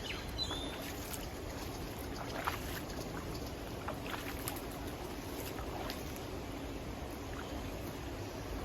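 Steady rushing outdoor ambience of wind and river water on a riverside walk, with a few short high chirps scattered through it.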